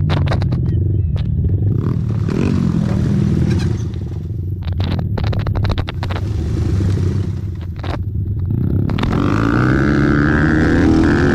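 Racing ATV engines running and revving, with a louder rev rising near the end. Sharp clicks and clattering knocks come in clusters during the first half.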